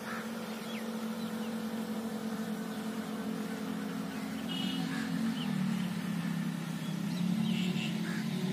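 A steady motor drone whose pitch drops slightly about five and a half seconds in, with a few faint bird chirps over it.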